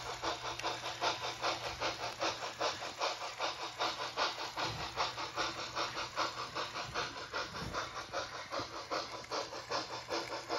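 Bachmann HO-scale Pennsylvania Railroad K4 steam locomotive model running, its onboard sound playing steady, quick, evenly spaced steam chuffs over a faint low hum from the model's motor.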